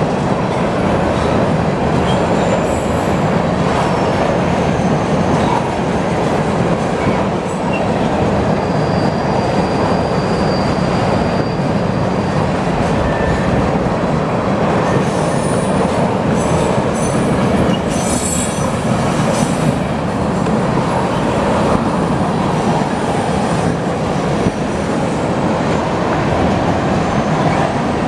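Freight train of tank cars rolling past: a steady rumble of steel wheels on rail, with brief high-pitched wheel squeals in the middle as the train takes the turn.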